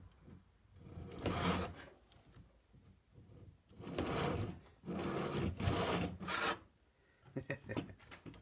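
Teeth of a handsaw held against a wooden billet turning on a foot-powered rope-drive lathe, rasping the wood. It comes in repeated bursts of about a second, with short pauses in between.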